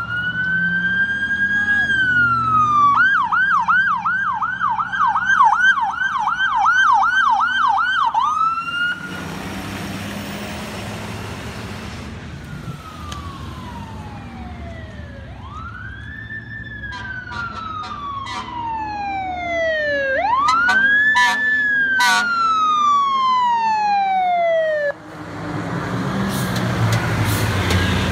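Electronic sirens of a responding ambulance and fire engine. A wail gives way to a fast yelp of about three sweeps a second for roughly five seconds. Later come long, slow wails rising and falling, and near the end the siren stops and the fire engine's engine rumbles past close by.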